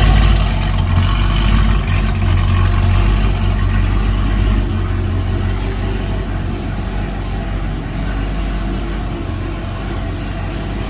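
Chevrolet Corvette C6 Z06's 7-litre V8 running through a full Corsa exhaust, very deep and very loud. It is loudest at first and eases a little toward the end.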